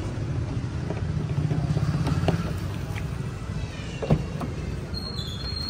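Steady low rumble with a few light clicks, and one sharp plastic click about four seconds in as a hand works the outer door handle of a Ford Figo.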